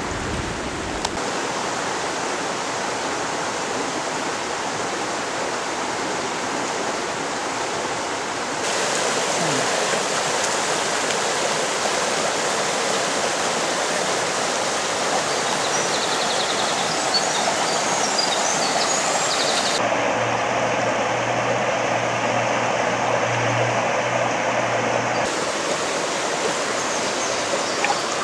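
Stream water rushing over rocks in a steady flow, its tone changing abruptly a few times.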